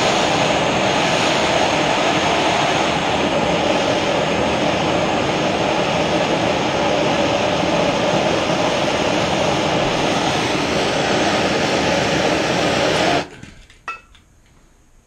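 Handheld propane torch burning with a steady, loud hiss, heating the edge of a file-steel blade to hardening heat. It is shut off about 13 seconds in, and a single sharp click follows.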